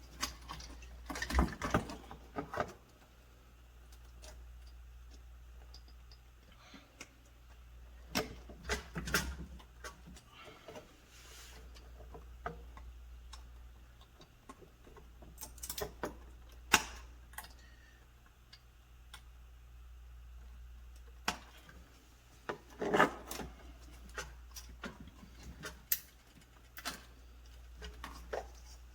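Plastic wire-harness connectors being handled and pushed onto a refrigerator's replacement control board: scattered irregular clicks, taps and rubbing.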